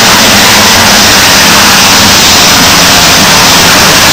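A pack of motocross bikes racing past at full throttle, their engines blending into one loud, steady noise.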